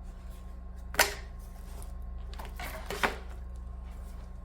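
Sharp clacks of hard plastic vacuum parts being handled and set down: a loud one about a second in and another about two seconds later, with lighter handling noise between.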